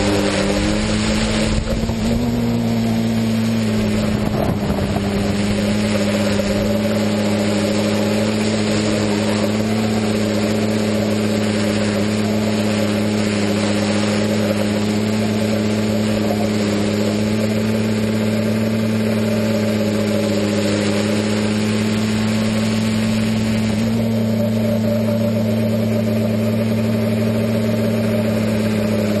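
Quadcopter's electric motors and propellers humming steadily, heard close up from the camera on the aircraft. The pitch steps slightly about two seconds in and again a few seconds before the end.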